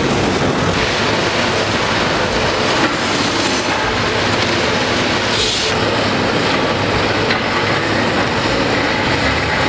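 Heavy demolition excavator at work: a loud, steady mechanical rumble and grinding noise.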